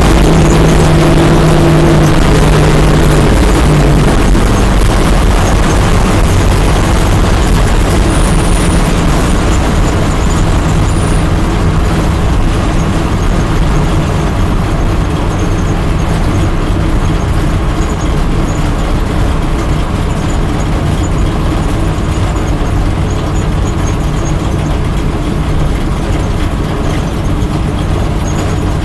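Stock car's V8 engine running hard at speed, heard loud from inside the cockpit, with road and wind noise mixed in. It eases a little in the second half.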